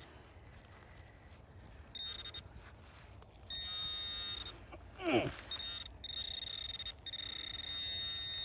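A metal detector's high, steady alert tone sounding in several on-and-off stretches, signalling metal targets in the hole being dug. About five seconds in, a brief loud squeal falls steeply in pitch.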